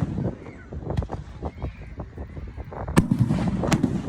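Fireworks going off: a continuous crackle of many small bangs, with two loud, sharp bursts about three seconds in, under a second apart.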